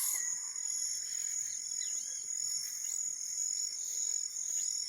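Insects trilling steadily at a high pitch, with a few faint short chirps over the top.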